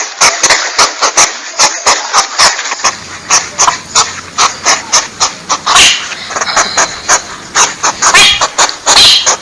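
Porcupine calling: a fast run of sharp clicks, about three to four a second, over a hiss.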